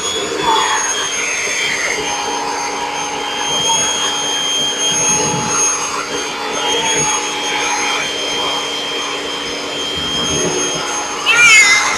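Vacuum cleaner running steadily while loose fur is vacuumed off a cat's coat: an even rushing noise with a steady whine in it.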